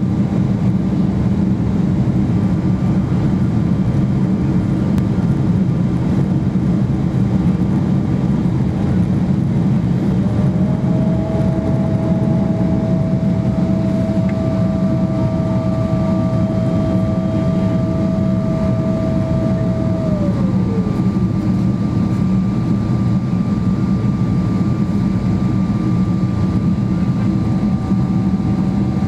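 Boeing 777-300ER cabin noise on approach: a steady, loud roar of airflow and engines. About a third of the way in a thin whine comes in, holds, then falls in pitch about two-thirds through, while a higher steady tone carries on to the end.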